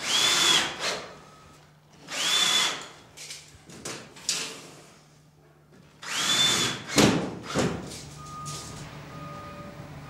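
Cordless drill-driver driving self-tapping screws into plasterboard: three short bursts of the motor spinning up to a high whine. A few sharp clicks follow the third burst.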